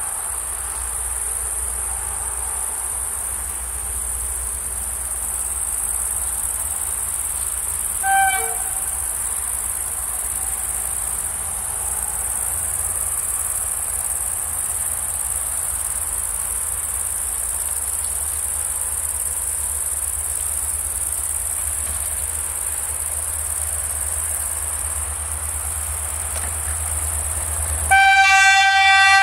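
Crickets chirping in a steady high-pitched drone over a low rumble as a GM class 65 diesel-electric locomotive approaches. A brief horn toot about eight seconds in, and near the end the locomotive's horn sounds one loud, long blast.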